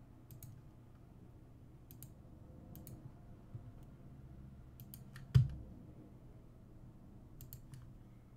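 Computer mouse clicking a few scattered times, the clicks often in close pairs, over a faint low hum. One louder, dull thump comes about five seconds in.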